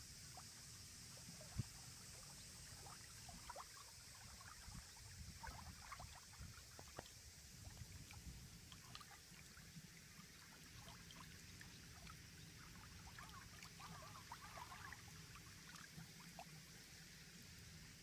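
Faint small wavelets lapping at the shoreline, with scattered little trickling splashes over a low steady rumble. One sharp tick sounds about one and a half seconds in.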